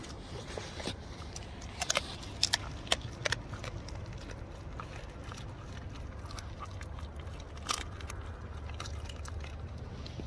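A dog mouthing and sniffing right at the microphone: a cluster of sharp clicks and snaps about two to three seconds in and another near eight seconds, over a steady low rumble.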